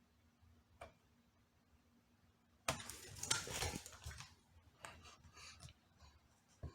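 Handling noise on a laptop: a single click, then about a second and a half of clattering and scraping, and a few more light clicks.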